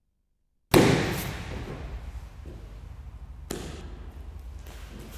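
Two thuds on a training mat: a heavy one about a second in and a lighter one past halfway, with rustling and room echo between them. They come from aikido practitioners' bodies and feet hitting the mat during a technique demonstration.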